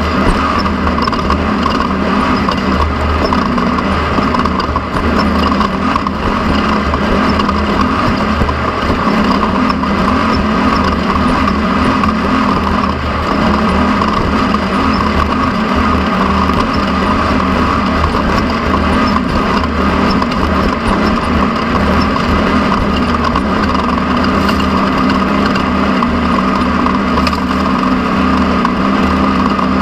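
Off-road race car heard from on board at racing speed: its engine runs hard and continuously over a loud, steady wash of driving noise, with no let-up.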